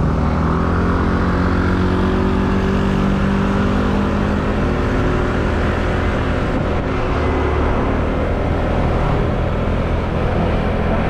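Motor scooter riding along, its engine running under heavy wind and road rumble on the microphone. An engine note slowly falls in pitch over the first several seconds, then fades into the noise.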